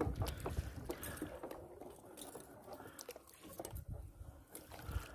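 A kayak paddle dipping and splashing in the water as the fishing kayak is paddled, with scattered small knocks and clicks of gear against the hull.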